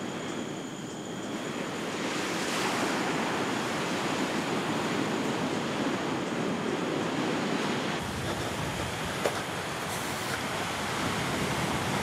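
Ocean surf breaking on a rocky shore: a steady rushing wash of waves that grows louder about two seconds in.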